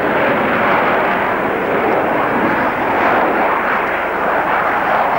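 Avro Vulcan bomber's four Olympus turbojets during a display pass overhead: a loud, steady jet noise that holds at the same level throughout.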